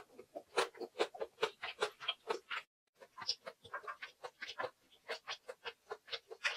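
Close-miked chewing of a mouthful of anchovy egg fried rice with the mouth closed: a quick run of wet mouth clicks, about four or five a second, broken by a short gap just under three seconds in.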